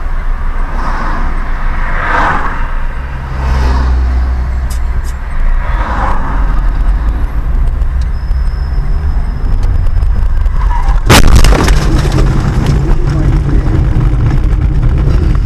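Car driving-noise rumble picked up by a dashcam, then a single loud impact about eleven seconds in, a collision, followed by continued rumble and noise.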